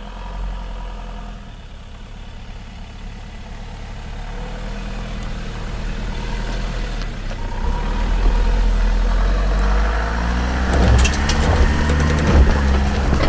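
A vehicle engine running steadily, growing gradually louder, with a few sharp clicks about ten seconds in.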